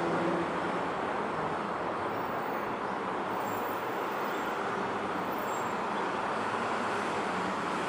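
Steady outdoor city background noise: an even rushing of traffic, with a faint low hum in the first half second.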